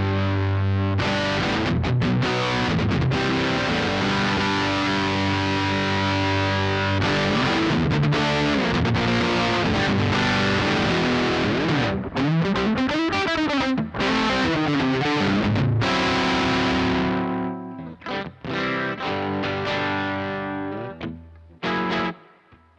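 Electric guitar with P90 pickups played through a Laney Lionheart L5 Studio valve amp and recorded from the amp's direct output. Sustained chords give way to string bends sliding up and down around the middle, then sparser notes ring and die away near the end.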